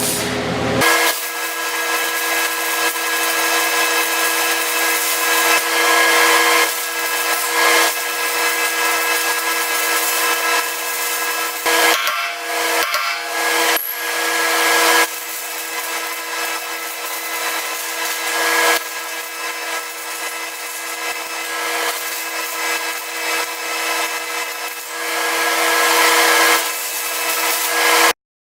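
Handheld power tool running with a steady motor whine and a rough grinding rasp, working the steel of the loader bucket's edge, with a short broken-up stretch a little before the middle.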